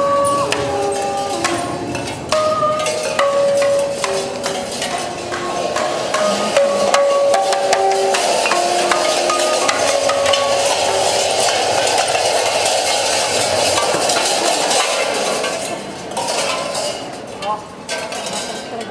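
Tin cans and metal cups hung on sound costumes clinking and clattering as they are struck and shaken. In the first half a string of short pitched notes steps up and down over the clinks, and in the second half it turns into a dense, continuous rattle.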